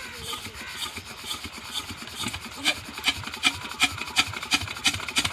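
16 hp Peter single-cylinder diesel engine being started: sharp rhythmic knocks at about two to three a second grow markedly louder from about halfway through as the engine catches and begins to fire.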